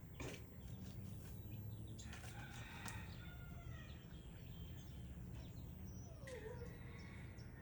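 Backyard chickens calling faintly, twice: a call with falling pitch about two seconds in and a lower, swooping call about six seconds in, over a steady low background rumble.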